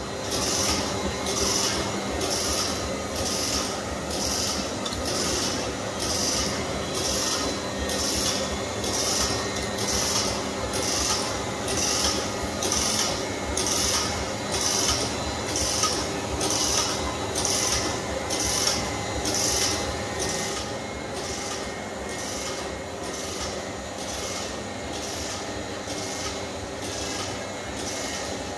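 Hikari-25 label printing machine running, with a rhythmic rasping swish about twice a second over a steady motor hum. The swish grows fainter about two-thirds of the way through.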